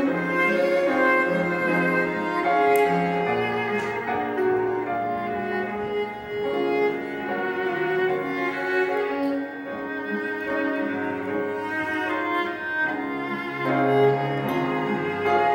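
Live bowed strings with a cello prominent: a slow, sustained melody over bass notes that change every second or two.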